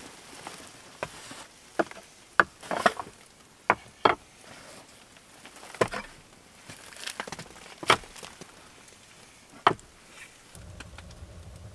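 Camp gear being unpacked from a canvas backpack and set down on a wooden plank table: a dozen or so sharp, irregular knocks and taps of wooden cups, boards and a glass jar meeting the wood, with fabric rustling between them.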